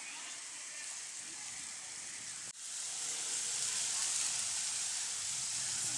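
Steady high hiss that cuts off sharply about two and a half seconds in and comes back louder, with a low steady hum joining near the end.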